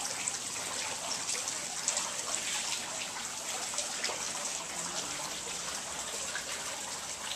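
Water from a tiered stone fountain splashing and trickling steadily, with many small drips.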